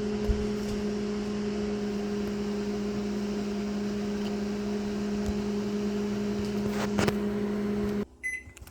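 Microwave oven running with a steady hum, then shutting off about eight seconds in at the end of its timer, followed by a short beep.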